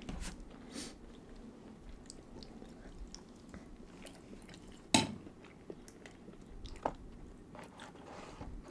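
Close-miked chewing and biting of food, with scattered wet mouth clicks; a single sharp click about five seconds in is the loudest sound.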